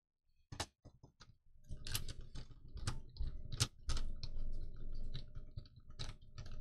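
Plastic parts of a light-up toy dinosaur clicking and rubbing as its round base housing is twisted and pried apart by hand. A few separate clicks come about half a second in, and the handling becomes busy and irregular from about two seconds in.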